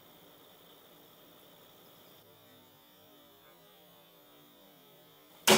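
Generic Adrenaclick epinephrine autoinjector firing into an orange: a single sharp, loud snap near the end as its spring-loaded mechanism releases under about 58 ounces of slowly rising push. Before it, only a faint steady hum.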